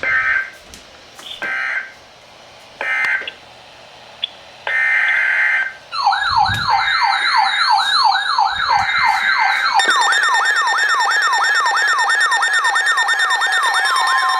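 Three short buzzy bursts of EAS digital data tones, typical of the end-of-message code that closes an alert, followed a couple of seconds later by a longer burst of the same data tone. About six seconds in, a siren tone starts sweeping rapidly up and down, about four sweeps a second, and more siren tones pile in near the ten-second mark.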